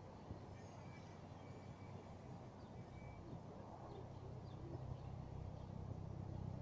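Faint outdoor ambience: a low, steady rumble that grows a little fuller and louder in the second half, with a few faint, high, short bird chirps over it.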